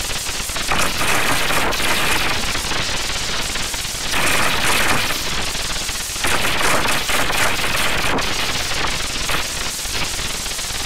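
Loud, harsh crackling noise with no steady pitch, shifting in tone every few seconds.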